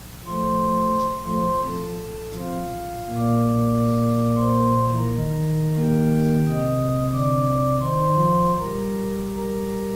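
Organ playing slow, held chords that begin about a third of a second in and change every second or so.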